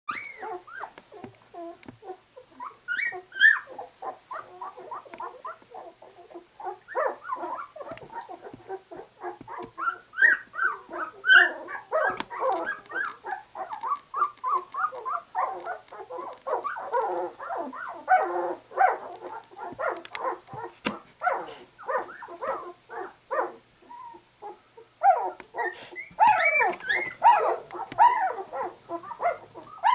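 A litter of two-week-old English Cream Golden Retriever puppies whimpering and squeaking almost constantly in many short overlapping calls as they squirm in a pile. Louder, higher squeals stand out a few seconds in, about eleven seconds in, and near the end.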